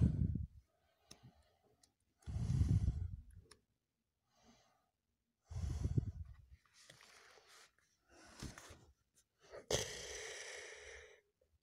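Handling noise close to a phone microphone as a book is opened and its pages are handled: about five separate rustling, rubbing bursts a second or two apart, the last a longer rustle of about a second and a half.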